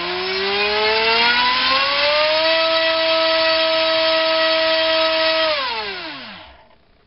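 Racerstar BR2406S 2300 kV brushless motor spinning an APC 6x4 electric propeller on a 3-cell battery, run up on a thrust stand. The whine rises in pitch as the throttle is opened over the first two or three seconds, holds steady at full throttle for about three seconds, then falls away and stops near the end.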